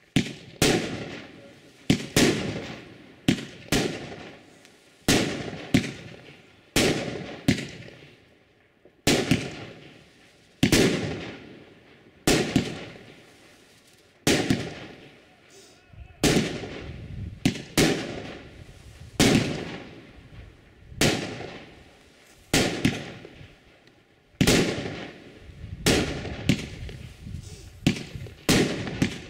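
A 25-shot 30 mm consumer firework cake fires its shots in quick succession, about one to two bangs a second, each sharp report trailing off in echo.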